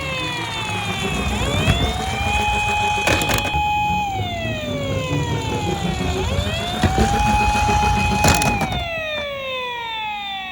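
Emergency-vehicle siren wailing, holding a high pitch, then sliding slowly down and sweeping back up, twice. Under it, toy minicars rumble and knock as they roll down a plastic slope, with a few sharp clacks.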